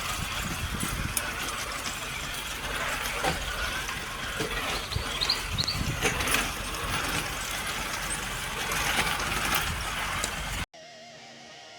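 Traxxas TRX6 six-wheel RC crawler truck driving over rough ground: its motor and drivetrain running, with tyres and chassis knocking over the terrain in scattered sharp knocks. Near the end the sound cuts off suddenly and guitar music begins.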